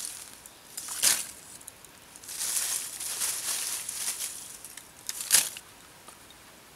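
Lumps of charcoal rustling and clinking as they are scooped by hand from a woven basket and tipped into a small clay furnace to fill it, with a sharp clatter near the end.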